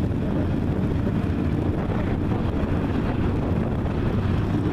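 Engines of a field of IMCA hobby stock race cars, many V8s running together as one steady, loud engine sound.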